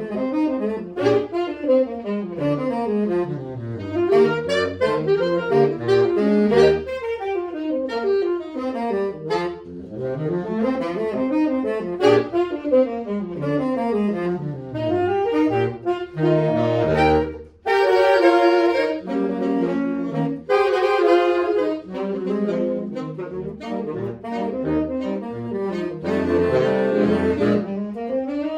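Saxophone quartet playing together, the voices running up and down in quick interweaving scale passages. About 17 seconds in they break off briefly, then come back in with fuller held chords.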